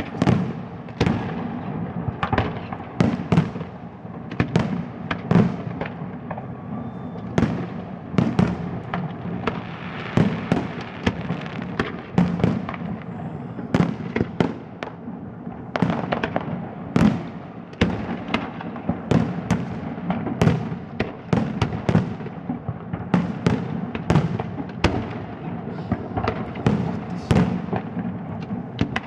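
Fireworks display: aerial shells bursting in a dense, irregular barrage of bangs, several a second, over a continuous low rumble.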